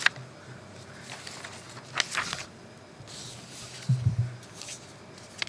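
Sheets of paper being handled and shuffled close to a table-top microphone cluster: a sharp click at the start, brief rustles about two seconds in, and a soft low thump about four seconds in.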